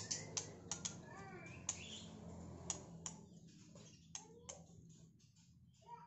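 Faint irregular sharp clicks, most of them in the first half, with a few short bird chirps among them, over a low steady background hum.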